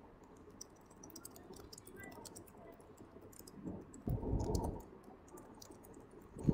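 Typing on a computer keyboard: a run of light, quick clicks, with a short muffled rustle about four seconds in.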